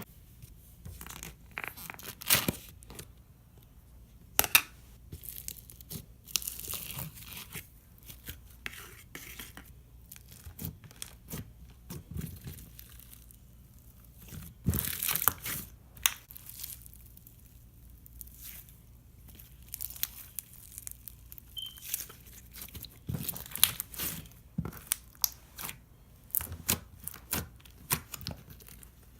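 Foam-bead slime being squished, poked and stretched by hand: irregular sticky pops, crackles and snaps, a few of them sharper and louder.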